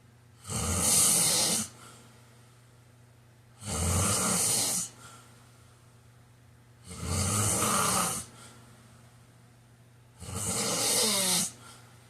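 A sleeping man snoring: four loud snores about three seconds apart, each lasting just over a second, the last with a falling pitched tone.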